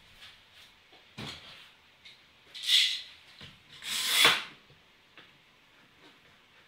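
Workshop handling sounds on a bench: a single knock about a second in, then two short, louder scraping slides, like wood or a clamp being dragged across a surface.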